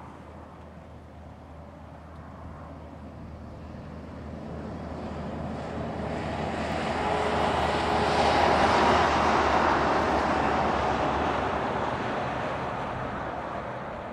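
A vehicle passing close by: its rushing noise swells over several seconds, peaks about two-thirds of the way through, then fades away.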